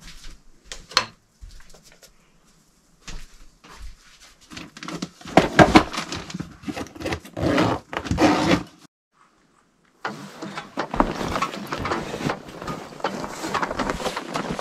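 Rustling and knocking of gear being packed into a backpack, with a few sharp clicks. After a brief silence comes a steady run of crunching footsteps in snow.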